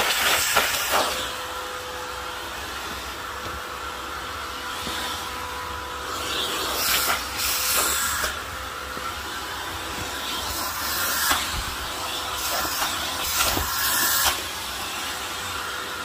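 Filter Queen Majestic vacuum cleaner running with a steady whine over a rush of suction air. Its nozzle is worked over leather couch cushions and into the crevices, and the airflow noise swells in several brief surges as it moves.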